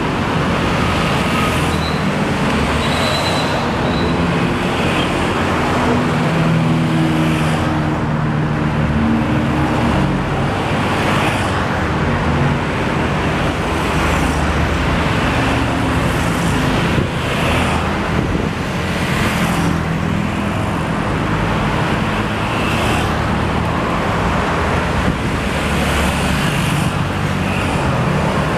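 Busy road traffic with large bus engines running and vehicles passing: a steady, loud din with a low engine hum that comes and goes.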